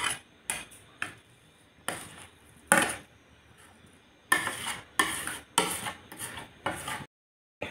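Metal spatula scraping and knocking against a metal kadai (wok) in a run of short, uneven strokes as grated coconut and sugar is stirred over a low flame so it doesn't stick to the bottom. The sound cuts off abruptly near the end.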